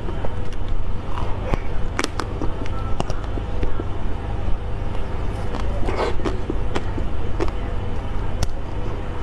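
Person eating, with irregular small crunches and clicks of chewing over a steady low rumble.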